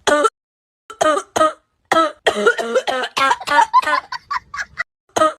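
A person coughing in a long, strange-sounding fit: a string of short coughs, with a rapid run of them through the middle.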